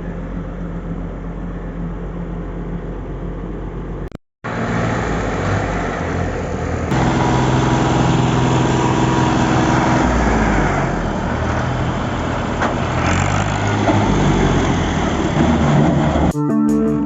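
Diesel engines of heavy earth-moving machinery running steadily under load, across a few cut-together clips, with a brief dropout about four seconds in. Guitar music starts just before the end.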